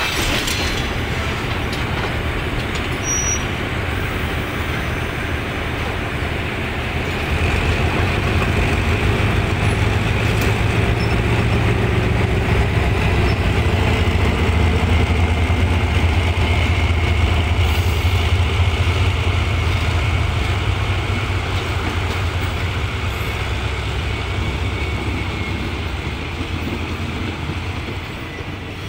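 Diesel locomotive engine running with a steady low drone while passenger coaches roll slowly along the track. The drone grows louder about seven seconds in and eases near the end.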